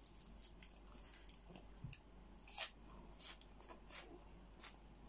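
Faint close-up eating sounds: chewing and crunching cooked crab, with short crackles of shell and membrane being pulled apart by hand and one louder crack about halfway through.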